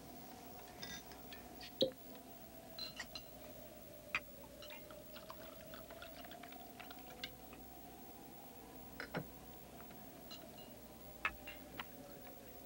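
Glass clinking and tapping: a brandy glass and glass decanter handled and set down as brandy is poured, a few sharp clinks among smaller taps. Beneath them runs a faint steady hum that slowly wavers in pitch.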